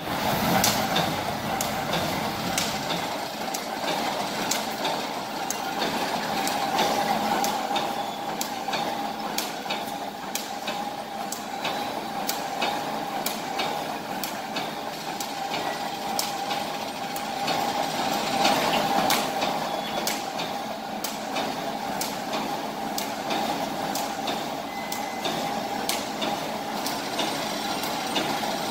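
Automatic wire mesh welding machine running: a steady mechanical hum with sharp clacks about once or twice a second, one for each welding stroke as the mesh is fed forward.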